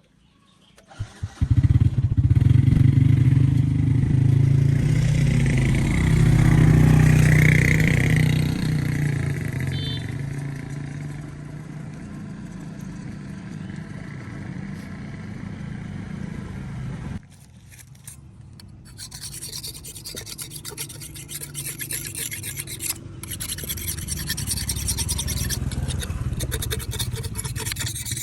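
An engine starts up and runs steadily, loud at first and slowly easing off, then stops abruptly about two-thirds of the way through. After a short lull, a continuous rasping scrape follows, like metal being filed or rubbed.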